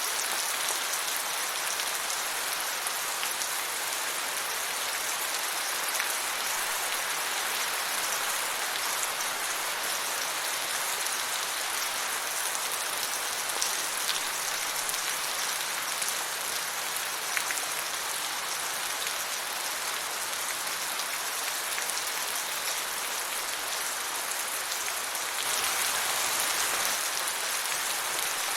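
Steady rain falling, an even hiss with now and then a single drop ticking through, growing a little heavier near the end.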